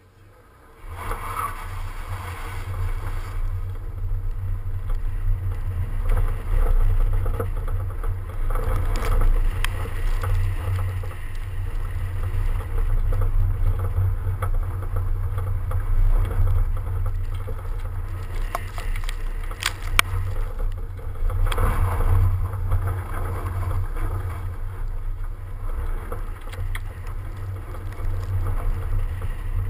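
BMW 335d moving off about a second in and driving on through a slalom on packed snow: a loud, steady low rumble of wind buffeting and road noise on a camera mounted outside the car, with engine and tyre sound rising and falling as it weaves. One sharp click about twenty seconds in.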